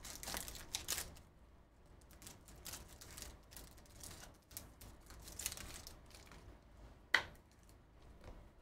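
Foil wrapper of a trading-card pack crinkling and tearing as it is opened by hand, with light clicks of the cards being handled and one louder snap about seven seconds in.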